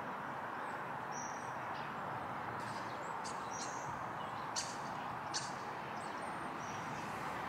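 Small birds chirping a few times, short high notes, over a steady even background hiss.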